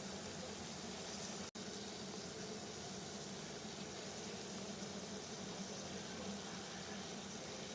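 Water boiling steadily, a continuous bubbling hiss that cuts out for an instant about one and a half seconds in.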